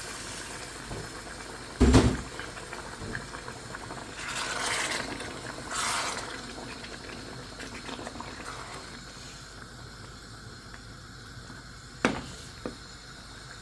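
Kitchen cooking sounds: a loud knock of a pot or bowl about two seconds in, then water splashing into a cooking pot in two short pours around four and six seconds, over a low simmer. Two sharp clicks of utensils come near the end.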